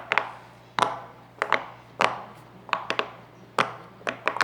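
A fidget toy being tapped and clicked for ASMR: sharp taps, singly or in quick pairs, about every half second to a second.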